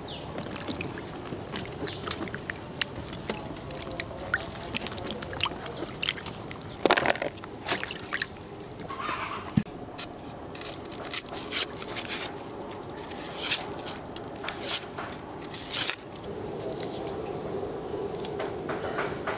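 Vegetable prep by hand: green peppers and chilies splashed about in a steel basin of water, then a knife peeling and cutting an onion, heard as many short clicks and taps.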